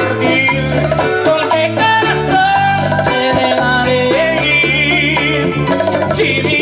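A live Latin band plays: a male lead singer over keyboards, guitar and percussion with a steady beat.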